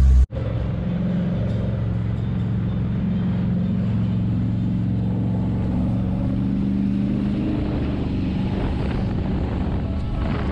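A race boat's 509 cubic inch big block Chevy V8 running steadily under way. It starts abruptly just after the start, and its pitch rises slightly over the first several seconds before holding level.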